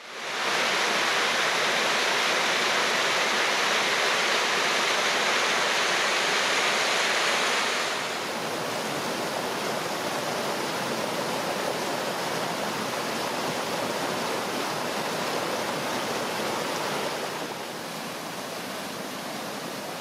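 Waterfall rushing steadily, then, after about eight seconds, the quieter rushing of a mountain stream cascading over boulders, which drops a little lower again near the end.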